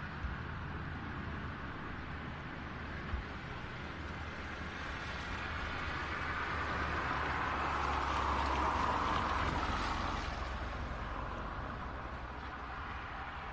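Jet noise of an Emirates Airbus A380-842 with its four Rolls-Royce Trent 900 engines passing by: a rushing roar with low rumble that swells to its loudest about nine seconds in, then fades.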